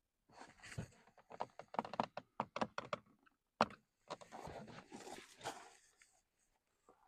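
Hands working under a car's dashboard: a quick run of clicks and knocks as parts and wiring are handled, one sharp click, then a couple of seconds of rustling and scraping.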